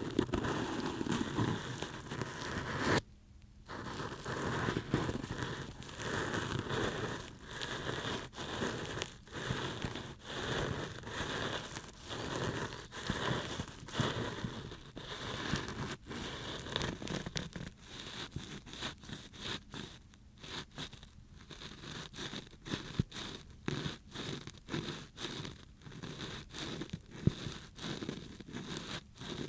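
Ear pick scraping and scratching in an ASMR microphone's ear, a dense crackly rustle with many small clicks; it cuts out briefly about three seconds in.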